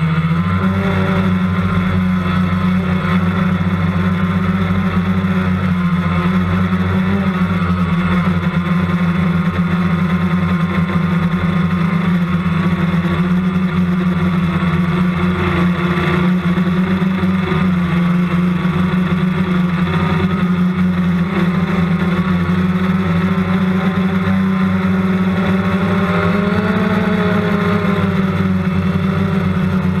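Multicopter's electric motors and propellers buzzing steadily, picked up by a camera mounted on the craft as it climbs, with a slight shift in pitch near the end.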